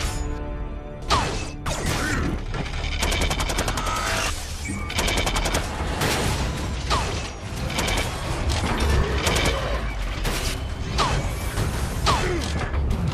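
Sound-effect gunfire from robot arm cannons in rapid bursts, with a few short falling zaps, over a background music score.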